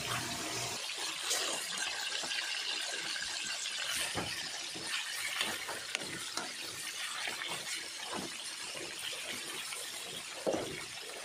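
Pork chunks sizzling steadily in hot oil in a wok, with metal tongs clicking and scraping against the pan now and then as the pieces are moved.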